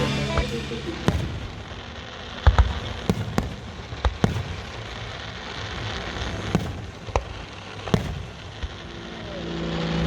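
Fireworks going off: a scattered series of sharp bangs and pops, about ten in all, the loudest about two and a half seconds in. Near the end a steady low drone begins to build.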